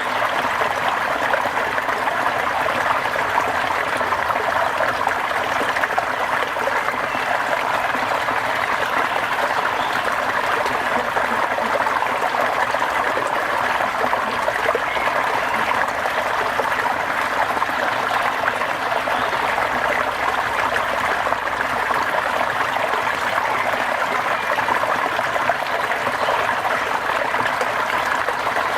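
Steady rain: an even, unbroken hiss of falling water that holds the same level throughout.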